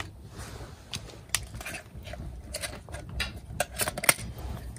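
Wood fire crackling and popping in a stainless-steel wood-gas stove, a string of sharp irregular snaps over a low rumble, with a few light clinks of small metal camping cups being pulled apart.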